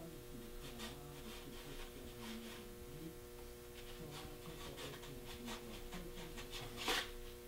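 Faint rubbing and light scraping of fingers smoothing soft mache over the skull on a foam deer-head mannequin, in short irregular strokes, with one brief louder scrape near the end. A steady electrical hum runs underneath.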